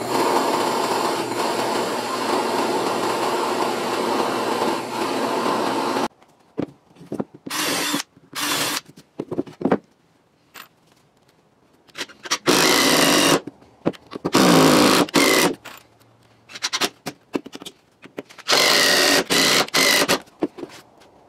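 Benchtop drill press running with a hole saw cutting through a stack of pressure-treated wood blocks, stopping suddenly about six seconds in. After a few short knocks of the wood blocks being handled, a cordless drill runs in several short bursts, drilling into a block.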